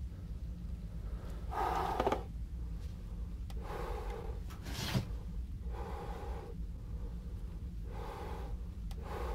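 A person breathing heavily: four or five airy breaths, roughly two seconds apart, over a steady low hum.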